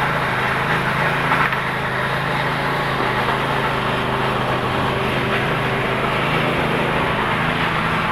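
A steady motor hum, even in pitch and level, with a low drone under a wider noise.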